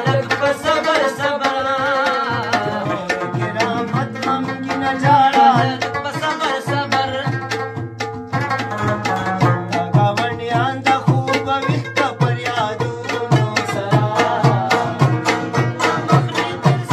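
Folk music: a plucked rabab with a hand-beaten clay pot drum and metal pot keeping a steady fast beat, with a man singing over it.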